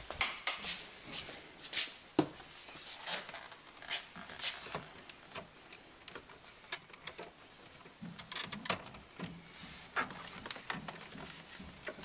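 Hard plastic glove box panel being handled and offered up under the dashboard: scattered light clicks and knocks of plastic on plastic, with rubbing and handling noise. The sharpest knock comes about two seconds in.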